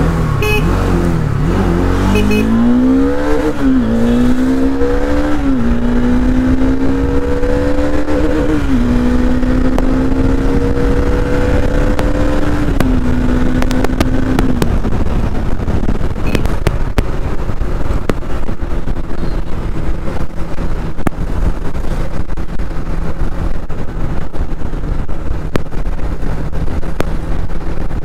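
Single-cylinder Bajaj Dominar motorcycle engine accelerating hard through the gears. Its note climbs and drops back at each of four upshifts over the first 14 seconds or so, then settles into a steady cruising drone under wind and road noise.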